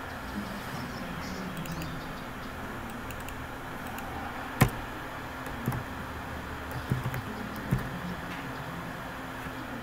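A few sharp computer keyboard keystrokes, the loudest about halfway through and several softer ones in the following three seconds, over a steady low hum of room noise.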